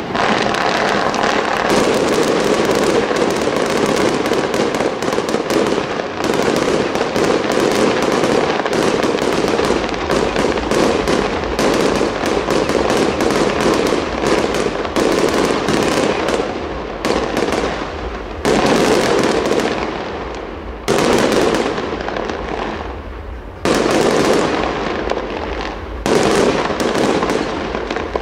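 Fireworks display: a dense, continuous barrage of bangs and shell bursts. The noise dips briefly several times before a new loud volley starts sharply.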